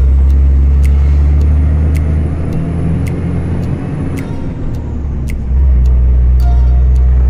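Vehicle engine and road rumble heard from inside the cabin while driving on a wet road. The rumble eases for about three seconds in the middle, then comes back at full strength, with a few scattered sharp clicks.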